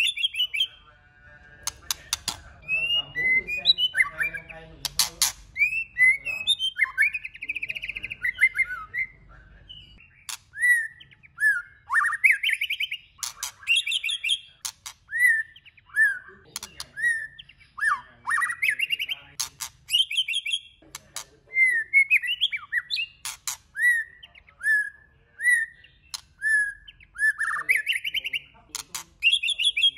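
White-rumped shama singing a varied string of short whistled phrases that swoop up and down, mixed with sharp clicks.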